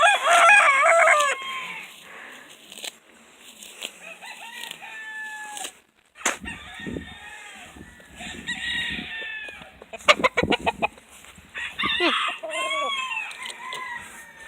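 Chickens clucking, with a rooster crowing once near the start, a long wavering call.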